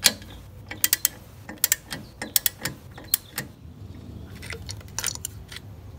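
Irregular sharp metallic clicks and clinks of hand tools and bolts against a VW Beetle's clutch pressure plate and transmission parts, several close together in the first half and a couple more about five seconds in.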